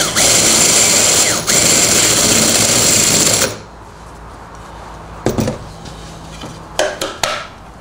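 Makita cordless drill running at speed, boring a spade bit through a wooden board, then stopping about three and a half seconds in. A few light knocks follow as the drill is set down and the board is handled.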